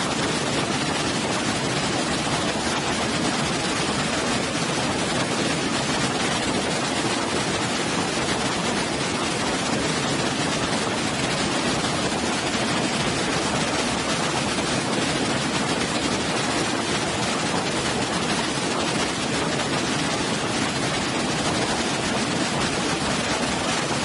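Waterfall: water falling steadily into a pool, an even rushing noise that does not change.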